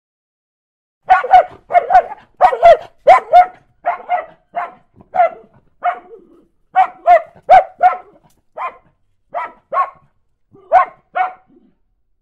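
A dog barking over and over, the barks often coming in quick pairs, starting about a second in after silence and spacing out towards the end: the alarm that sounds when a countdown timer runs out.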